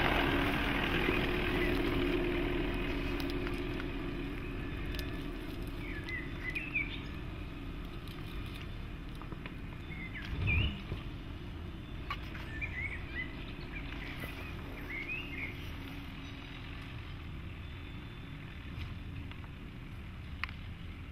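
Jeep Cherokee's 2.2-litre diesel engine pulling away and fading into the distance, leaving a quiet forest background with short bird chirps. A single dull thump about ten seconds in.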